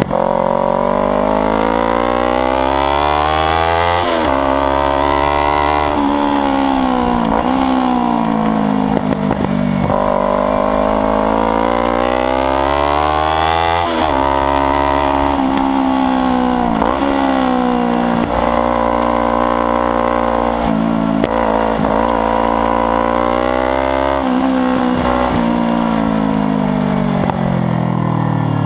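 Loud Kawasaki Ninja 300 parallel-twin engine revving hard on track. Its pitch climbs in long rising sweeps broken by quick drops at each gear change, then falls away as it slows, again and again.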